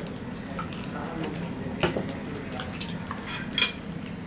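Light clinks and clatter of ceramic plates and a drinking glass, with the sharpest clink about three and a half seconds in, among the soft sounds of hand-eating from the plates.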